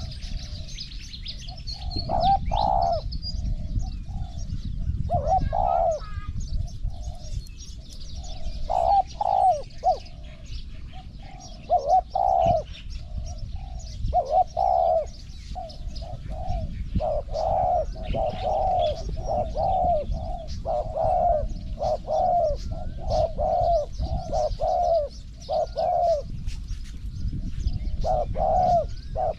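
A caged decoy spotted dove cooing in repeated phrases, calling to draw in wild doves. Small birds chirp faintly in the background over a steady low rumble.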